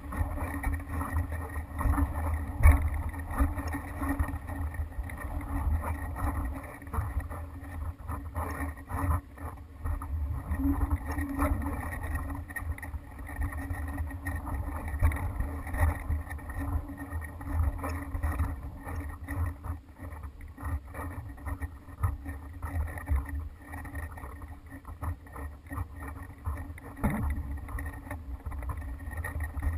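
Wind buffeting a GoPro hanging from a kite aerial photography rig, a constant low rumble broken by many small knocks and rattles as the rig swings.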